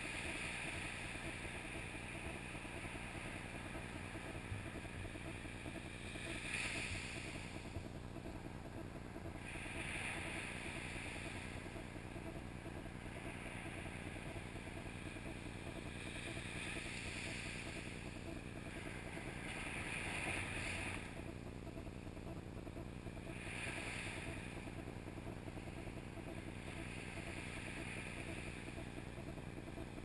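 Small waves breaking and washing up a sandy beach: a steady low rush with a surge of hiss every few seconds as each wave comes in.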